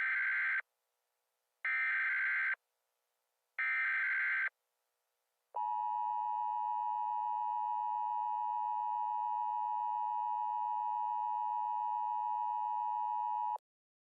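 Emergency Alert System tones: three short bursts of the warbling digital SAME header, about two seconds apart, followed by the two-tone attention signal, a steady harsh dual-tone drone held for about eight seconds that cuts off suddenly.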